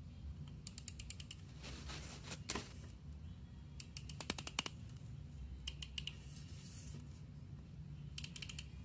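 Correction tape dispenser being drawn across paper, its roller and take-up reel giving several short runs of rapid ratcheting clicks, one run per stroke.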